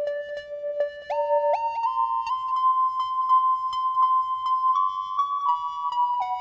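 Eurorack modular synthesizer music: sustained, flute-like tones that glide up to higher notes about a second in and then hold, over a steady ticking pulse.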